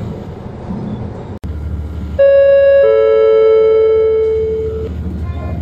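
Two-note gong of a regional train's onboard announcement system: a higher note, then a lower one about half a second later, ringing out for about two seconds. It is the attention signal ahead of a next-stop announcement, heard over the train's low, steady running rumble.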